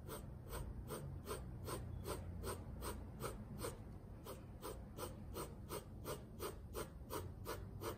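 Graphite pencil shading on drawing paper in quick, even back-and-forth strokes, about four a second.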